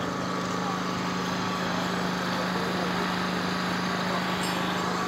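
A small engine running steadily at a constant speed with an even, unchanging drone.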